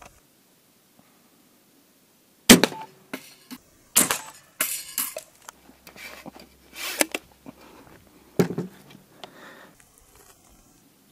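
Handling noise: a run of sharp clicks and knocks, the loudest about two and a half seconds in, with short scraping sounds between them.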